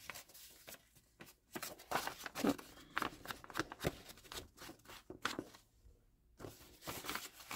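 Old book-page paper rustling and crinkling as it is handled and flattened, with scattered light taps and clicks, and a brief lull about three-quarters of the way through.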